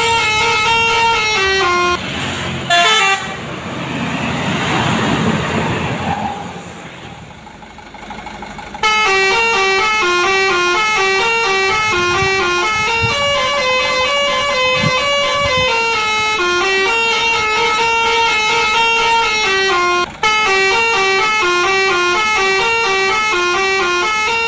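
Multi-tone telolet bus horn playing a repeating melody of short, stepped notes. A few seconds in the tune gives way to a stretch of rushing noise, then the melody starts again and runs on, with a brief break about twenty seconds in.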